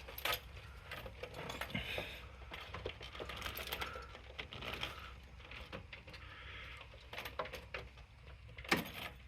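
Scattered light clicks and small metallic rattles as a car clutch cable and its rubber grommet are worked into place by hand, with one sharper knock near the end.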